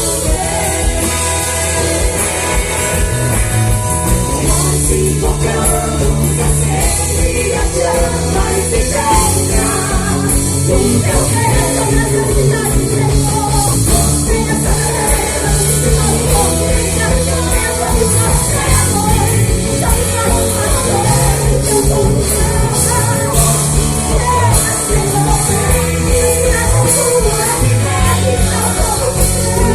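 A gospel band playing rock-style music, with a singer over bass and drums.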